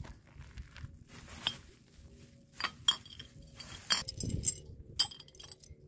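Glass bottles and broken glass clinking against each other: several sharp, irregular clinks with a short ringing after each.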